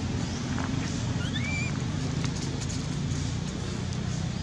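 Outdoor ambience: a steady low rumble, a short whistle-like call that rises and then falls off about a second and a half in, and scattered faint clicks and rustles.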